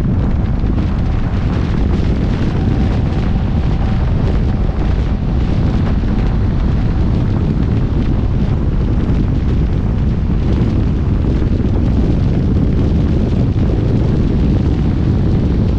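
Wind buffeting the microphone, a loud, steady low rumble, with vehicle traffic noise underneath.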